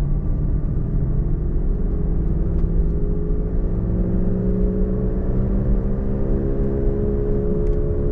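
Worn wheel bearing humming in a moving car, heard from inside the cabin over low road rumble. The hum is several steady tones whose pitch slowly rises as the car gains speed.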